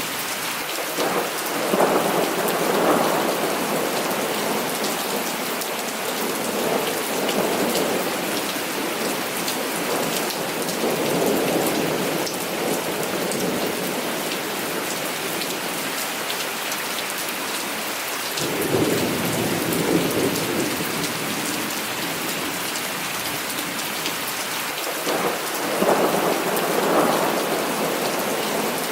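Heavy rain falling steadily with a dense hiss, and thunder rumbling in slow swells several times over it, the strongest rolls about two seconds in, past the middle and near the end.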